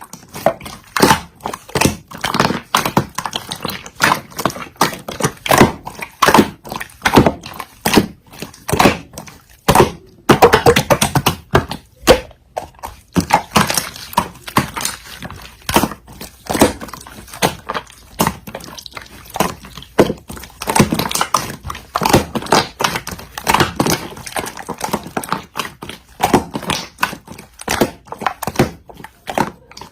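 Slime being squeezed and poked by hand, giving a dense, irregular run of sticky clicks and pops.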